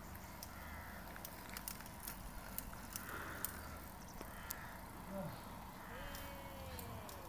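Quiet roadside ambience with scattered faint ticks and clicks, then a faint call that falls in pitch near the end.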